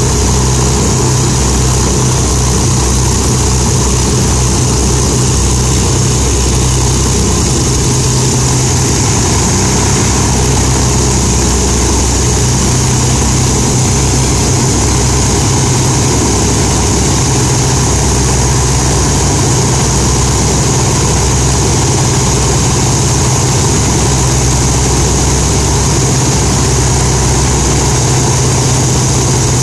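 Avro Lancaster bomber's Rolls-Royce Merlin V12 piston engines running loud and steady, with no change in speed.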